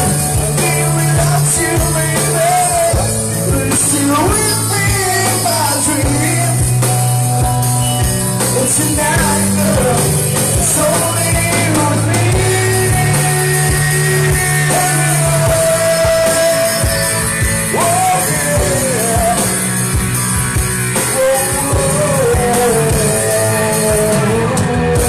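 A live band playing rock music, with drums from an electronic drum kit, bass guitar and guitar, and singing over them.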